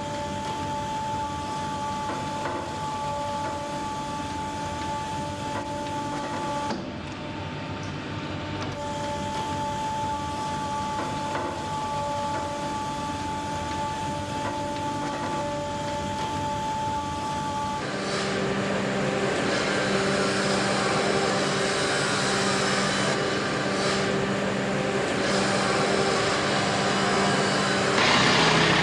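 Factory machinery running with a steady hum and whining tones that briefly drop out and come back. About 18 s in it gives way to a louder, rougher machine sound with a deeper steady hum.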